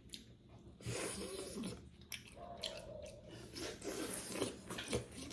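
Close-up chewing of buffalo-meat momo dumplings: irregular wet mouth and jaw sounds with small clicks.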